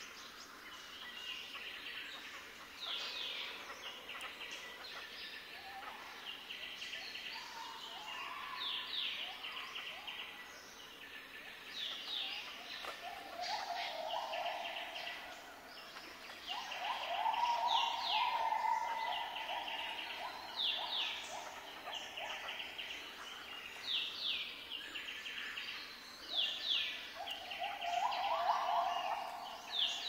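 Pin-tailed whydah singing, phrase after phrase of quick high down-slurred chirps and buzzy trills, with harsher lower buzzes that come in strongest in the second half.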